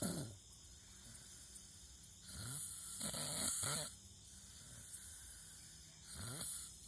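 A person snoring in a steady rhythm, one snore about every three to four seconds.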